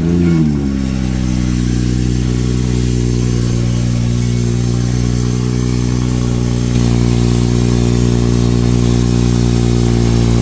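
Cold start of a BMW 340i's turbocharged 3.0-litre inline-six with a cat delete. The engine flares briefly, then settles into a loud, steady fast idle, getting slightly louder about seven seconds in.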